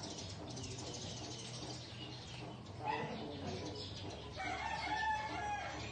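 Fowl calling: a short call about three seconds in, then one long drawn-out crow lasting over a second near the end.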